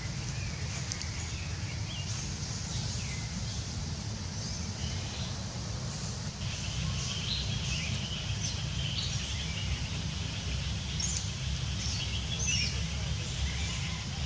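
Wild birds chirping and calling, short high chirps scattered throughout, over a steady low rumble.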